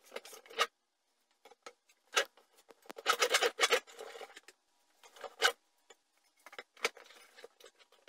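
Homemade quick-release wooden leg vise being closed on a board and tightened, with its metal screw and crossed metal guide. A few sharp clicks and knocks of wood and metal come first. About three seconds in there is a dense rattling clatter that lasts close to a second, as the handle is turned. Single clicks follow about two and three seconds later.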